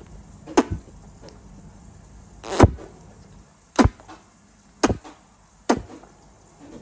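Puffed-out cheeks being punched with the fists, each blow forcing air out through pursed lips in a short, sharp pop. About six pops land roughly a second apart.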